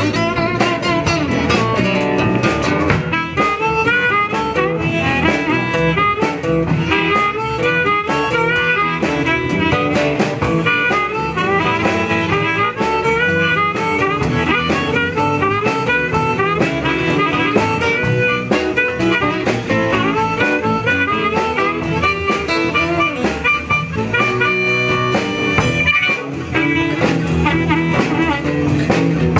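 Live blues band playing: a harmonica solo, cupped against a microphone, over acoustic guitars and a drum kit.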